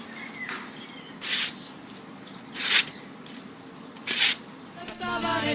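Three short hissing sprays, evenly spaced about a second and a half apart. Music comes in near the end.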